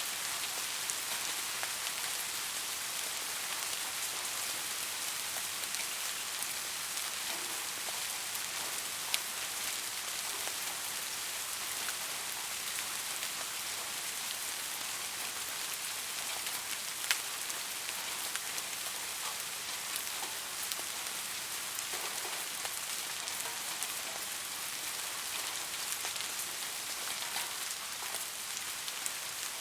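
Steady rain falling, a continuous hiss with many small drop ticks and an occasional louder drip.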